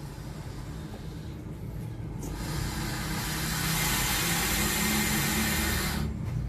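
Burmese python giving a long defensive warning hiss, a loud breathy exhalation that starts suddenly about two seconds in and cuts off near the end, with a low rumble underneath.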